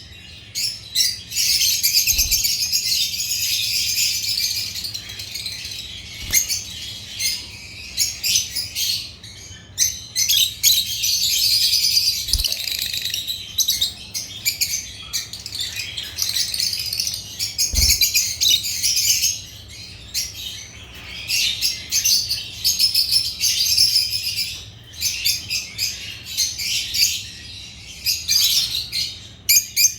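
Agapornis lovebirds chirping in fast, high-pitched chatter that keeps breaking off briefly and starting again, with a few soft low knocks.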